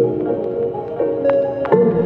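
Gentle instrumental background music, with held notes changing about once a second.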